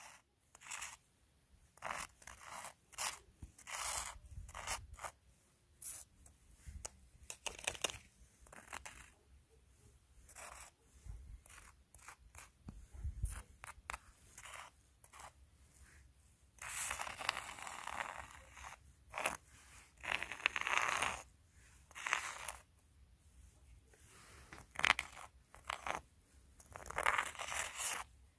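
Footsteps crunching in snow, a series of separate steps, with longer drawn-out crunches in the second half.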